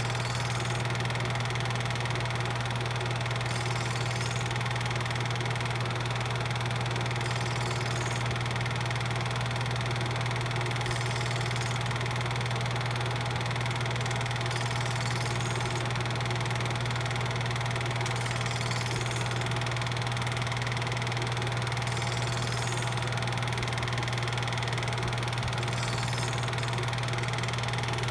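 8mm film projector running: a steady mechanical hum with a strong low drone, unchanging throughout.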